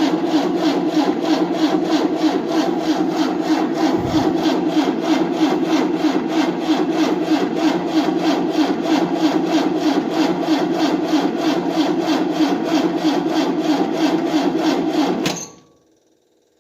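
Starter cranking the 1988 Tennant 255 Series II sweeper's engine in a steady, even rhythm without it firing, then stopping suddenly near the end. The engine cranks but won't start after sitting unused for about a year, even with a new fuel line and a booster on the battery.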